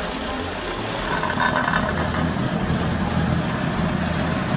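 Small gasoline engine of a vibratory plate compactor running, getting louder about a second in and then holding steady, as it shakes on a fresh asphalt patch.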